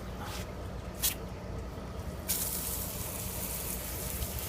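Water spraying onto moss to moisten it: two short spurts, then a steady spray hiss starting about two seconds in.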